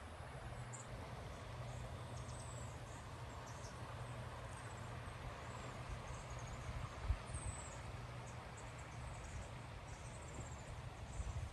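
Steady outdoor ambience: an even rushing noise with a low hum beneath it, faint high-pitched chirps scattered throughout, and one low bump a little past the middle.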